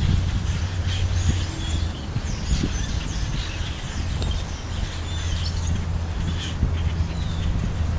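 Birds chirping and whistling in short, scattered calls, over a steady low rumble.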